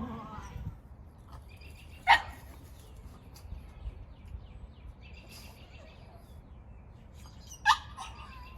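A pug barking twice: two short, sharp barks about five and a half seconds apart.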